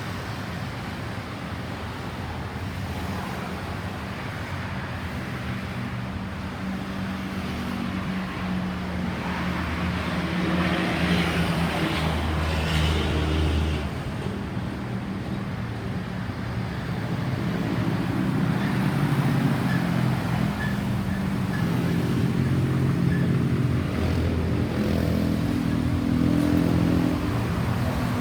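Road traffic: vehicle engines running and passing by, with a louder pass about ten seconds in and another through most of the second half. No siren sounds.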